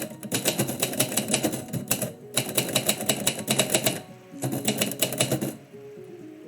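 Typewriter keys being typed in rapid runs of clacks, in three bursts with short pauses between them, stopping about five and a half seconds in. Background music plays faintly underneath.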